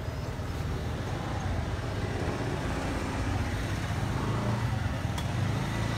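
Car engine running at low speed as a taxi creeps past close by, a steady low hum that grows slightly louder towards the end, with one faint click about five seconds in.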